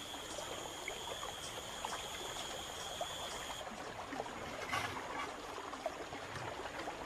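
Swollen river floodwater rushing steadily past, with a steady high whine over it that cuts off about three and a half seconds in.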